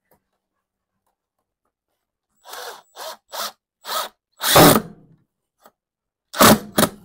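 Milwaukee M18 cordless drill/driver driving screws into the plastic timer housing in about seven short trigger bursts. The first burst comes about two and a half seconds in, the longest and loudest at about four and a half seconds, and a final pair near the end.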